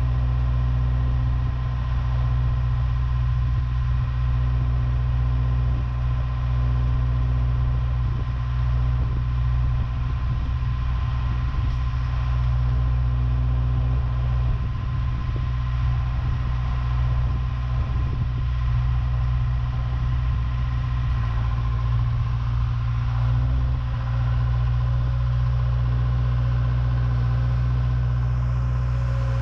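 John Deere 270 skid steer's diesel engine idling with a steady, unchanging low drone.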